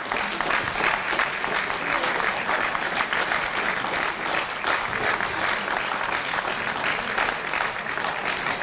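Spectators applauding, a dense, steady clapping that holds at one level throughout.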